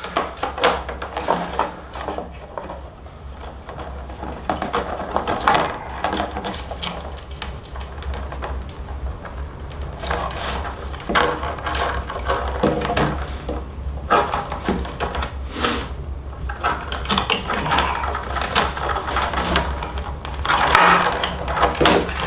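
Rawhide lacing being picked loose with an awl and pulled through a rawhide frame drum's lacing: irregular scraping, rustling and small knocks of hide against hide and wood, coming in clusters, over a steady low hum.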